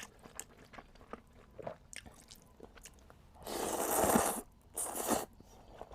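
Close-up eating of chewy fresh rice noodles: faint wet mouth clicks, then two louder noisy stretches, one of about a second starting about three and a half seconds in and a shorter one near five seconds.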